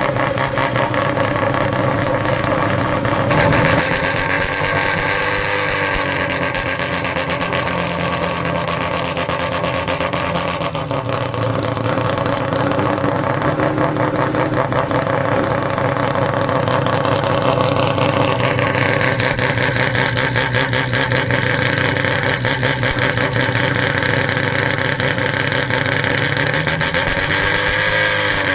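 Mazda 13B peripheral-port rotary engine running at low road speed, a fast, choppy pulsing exhaust note. The engine note shifts several times as the throttle and revs change.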